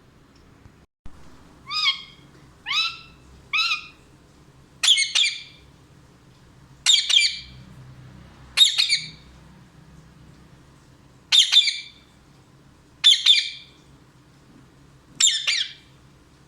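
Pet parrot squawking: three short calls that rise in pitch, then six longer harsh calls about every two seconds.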